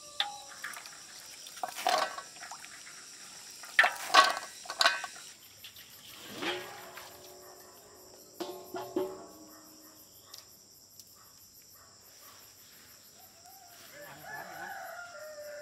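Unshelled peanuts rattling and knocking against an aluminium basin as hands sort them, with several sharp knocks in the first five seconds. Then crickets or other insects keep up a steady high whine, and a rooster crows twice in the distance.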